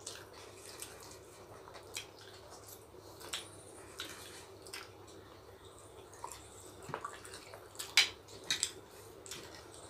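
Wet eating sounds from two people eating rice and curry with their fingers: chewing, lip smacks and fingers squishing rice on plastic plates, heard as scattered small clicks, the loudest about eight seconds in.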